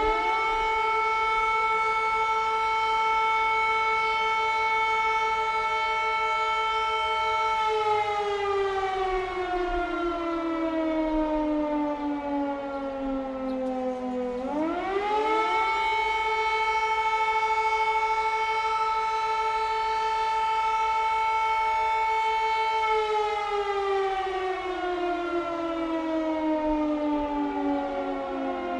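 Air raid siren wailing in long cycles. Its pitch rises quickly and holds steady for about seven seconds, then slides down for about seven seconds. It rises again about halfway through, holds, and begins sliding down again near the end.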